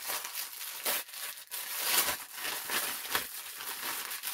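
Wrapping paper being torn and crumpled by hand as a present is unwrapped: an irregular crackling rustle with several sharper rips.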